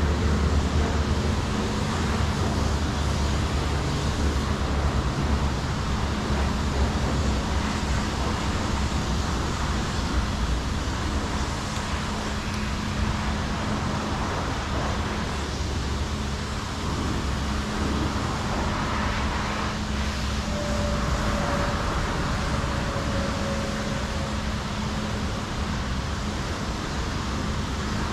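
Steady low engine rumble with an even hum, like a motor vehicle running at idle.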